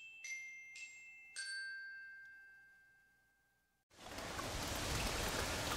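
The last few bell-like glockenspiel notes of a short intro jingle, the final note ringing and fading away; after about a second and a half of silence, the steady hiss of quiet rain starts about four seconds in.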